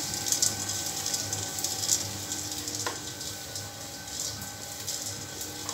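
Popcorn machine kettle heating its oil and kernels: a steady sizzling hiss, with a steady hum from the machine's stirring motor and a single click about three seconds in. The corn has not yet started popping.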